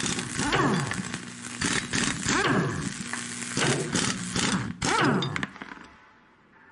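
Metal-cutting sound effect: a harsh hiss with crackle and a whine that sweeps down and back up about every second and a half, over a steady low hum. It dies away near the end.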